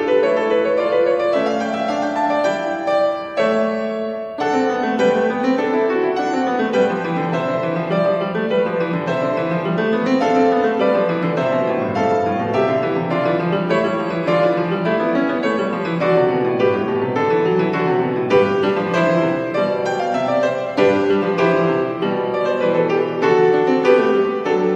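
Solo grand piano playing a lively piece. Quick running scales climb and fall again and again in the lower range beneath higher notes.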